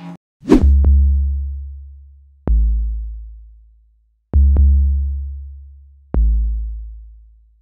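Electronic music: four deep synthesized bass-drum booms, about two seconds apart, each starting sharply and fading away slowly. The first is the loudest and brightest.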